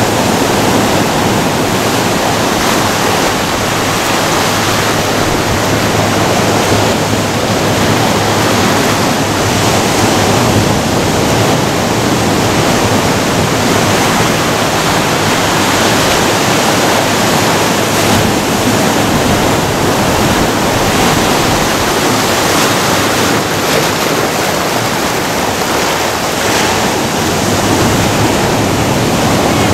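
Ocean surf breaking and washing over a rocky shore: a steady, loud rush of water.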